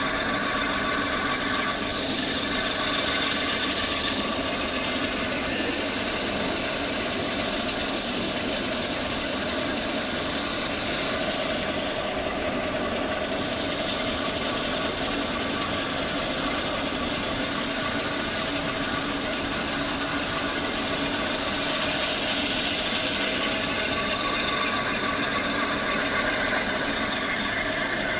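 Lathe running as a cutting tool faces a metal flange: a steady machining noise that holds at an even level throughout.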